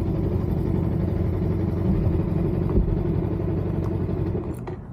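Suzuki Inazuma motorcycle with its stock exhaust running under way, a steady low engine drone that quietens near the end.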